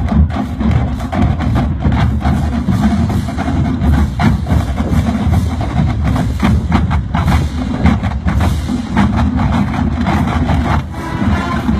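Marching band playing a halftime show number, with the drums' strokes hitting throughout under the band.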